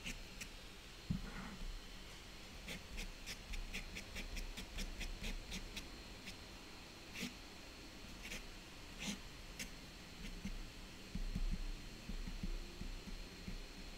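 Ink pen scratching on toned paper in quick short flicks as grass is drawn: a run of light ticks about four a second for a few seconds, then scattered strokes, with a few soft knocks of the hand on the drawing surface near the end.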